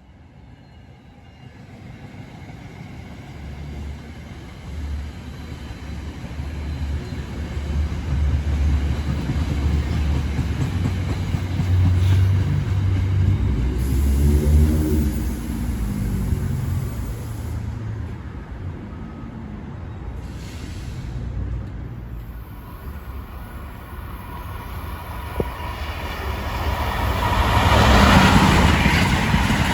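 Passenger train passing on the main line: a low rumble builds over the first dozen seconds, then louder wheel-on-rail noise swells near the end.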